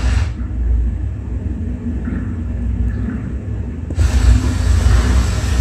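Film soundtrack played loud through 5.1 home-theatre speakers: a deep, steady rumble, muffled with the high end gone for the first few seconds, then fuller and brighter from about four seconds in.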